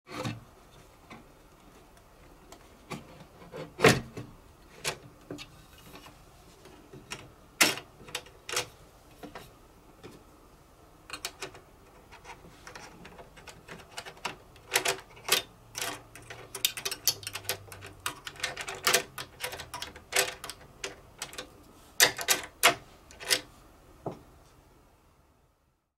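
Irregular sharp metallic clicks and taps as a screwdriver works at the washer and T-bolt under a zinc-plated steel bracket. A few loud isolated clicks come in the first half, then a busier run of clicks in the second half.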